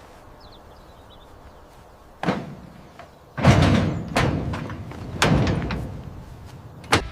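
A series of five heavy thuds or slams, each dying away with a short ring, starting about two seconds in; the second, a little past the three-second mark, is the loudest.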